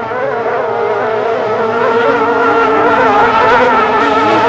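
Several 850cc modified hydroplanes' racing two-stroke outboard engines running at full throttle, a high buzz of overlapping, wavering pitches. It grows louder as the boats pass, loudest a little past the middle.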